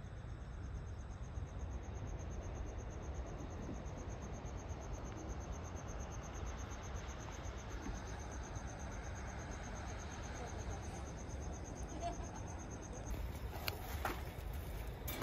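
Insects chirping in a rapid, even, high-pitched pulsed trill over a low rumble; the trill stops about thirteen seconds in, and a few clicks follow.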